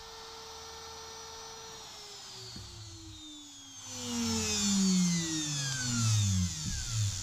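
CNC router spindle motor winding down after being switched off: its steady hum gives way, about two seconds in, to several whines that fall steadily in pitch over the next few seconds, with a louder hiss joining about four seconds in.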